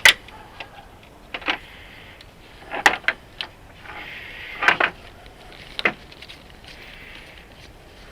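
Hand tools clicking and clinking against metal on the engine, a handful of sharp, irregular clicks with pauses between them, some in short clusters.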